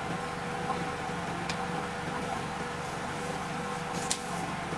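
Steady mechanical room hum, with two light clicks about a second and a half in and near the end as a plastic pattern ruler and pen are handled on paper.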